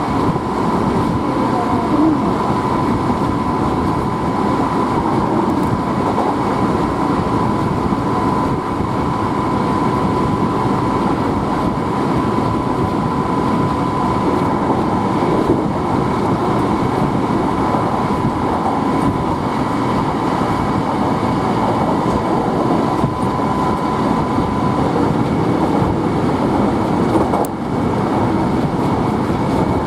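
Hankyu Kyoto Line electric train running, with continuous wheel-on-rail and motor noise. A steady high tone carries through the noise and stops about 25 seconds in.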